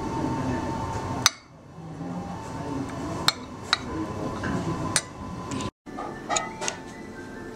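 A metal spoon clinking a few times against a ceramic plate, the first clink the loudest, over a low room murmur.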